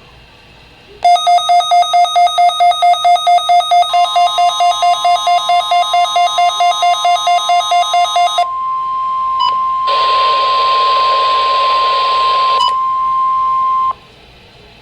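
NOAA Weather Radio 1050 Hz warning alarm tone, one steady high tone lasting about ten seconds, starting a few seconds in. Over its first half an electronic alarm beeps rapidly, about four beeps a second, and a burst of hiss sounds for a few seconds shortly before the tone cuts off.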